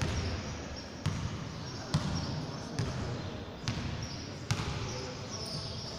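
Basketball dribbled on a wooden gym floor: sharp bounces about once a second.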